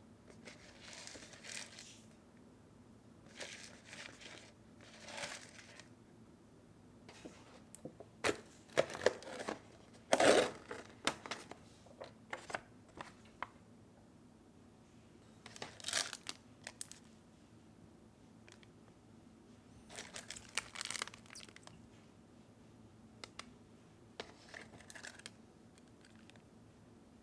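Plastic instant-noodle packaging being crinkled and torn open by hand, in short bursts separated by pauses, with the loudest sharp crackles near the middle.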